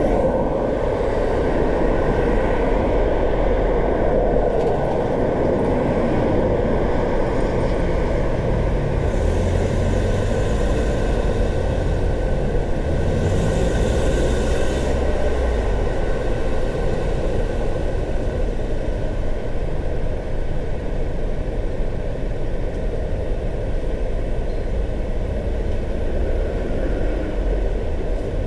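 A car driving on city roads: steady road and tyre noise with a low rumble underneath. Twice, about nine and thirteen seconds in, a brief hiss swells and fades.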